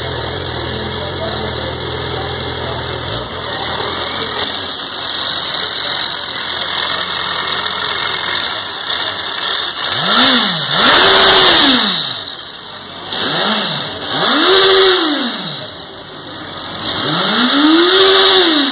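Suzuki GSF650S Bandit's 656 cc inline-four engine running steadily, then revved in five throttle blips from about ten seconds in. Each blip climbs in pitch and falls back, and the last, near the end, is the longest.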